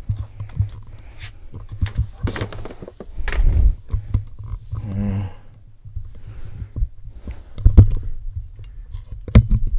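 Handling noise: scattered knocks, clicks and rustling as objects are picked up and moved about.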